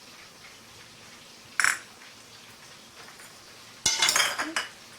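Kitchen utensils being handled while a marinade is measured out: a short clink about a second and a half in, then a louder burst of clicking and clatter for about a second near the end.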